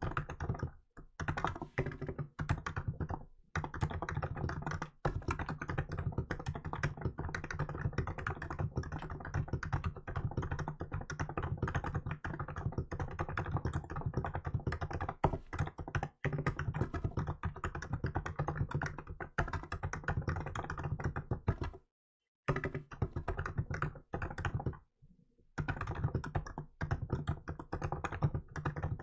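Fast, continuous typing on a Hansung GK868B electrostatic capacitive (non-contact) keyboard with milk keycaps: a dense stream of key presses. The typing stops for a few short pauses, the longest about three-quarters of the way through.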